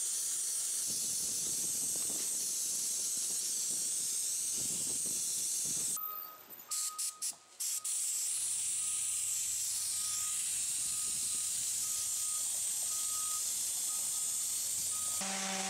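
Sandblaster gun spraying abrasive grit onto wooden decorative trim: a steady, high compressed-air hiss that cuts out and restarts a few times about six to eight seconds in.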